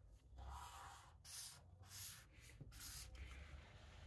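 Felt-tip marker pen drawing a box on a sheet of paper: several faint, short scratchy strokes with brief pauses between them.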